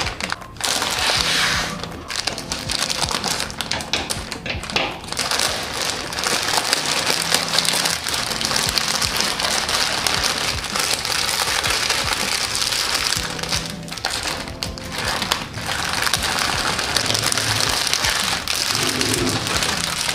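Plastic instant-noodle multipack wrapper crinkling as it is torn open and the packs are pulled out and handled, with soft background music.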